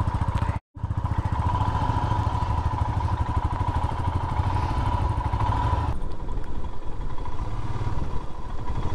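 Royal Enfield Classic 350's single-cylinder engine running steadily while the motorcycle rides along. The sound cuts out for a split second near the start and turns duller about six seconds in.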